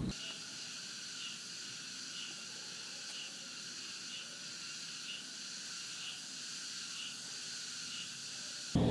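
Insects chirping in a steady high-pitched chorus, with one call pulsing about once a second; it cuts off just before the end.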